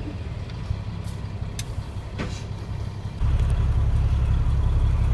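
Inline-six diesel of a 1971 Scania L-110 truck running under way, heard from inside the cab, with a few sharp cab clicks. About three seconds in there is a cut to a louder, deeper steady engine drone.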